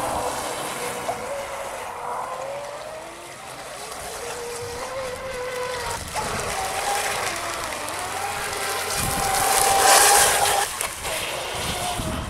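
Homemade 3D-printed RC outrigger speedboat's motor whining as it runs across the water, the pitch stepping up about six seconds in. A loud rushing noise covers it briefly around nine to ten seconds in.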